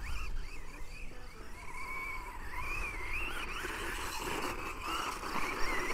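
Brushless electric motor of an XLF F11A 1/10 RC off-road car whining as it drives, the pitch wavering up and down as the throttle and speed change.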